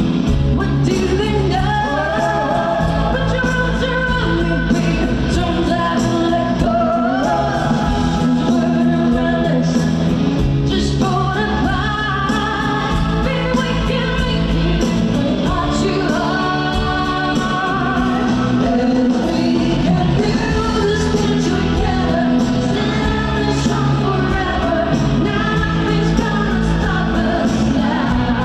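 A pop-rock song performed live: a singer's voice over a full band, with steady bass and drums.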